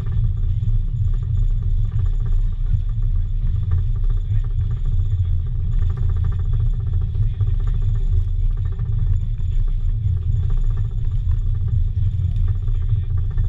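Steady low rumble of a moving passenger train car rolling along the track.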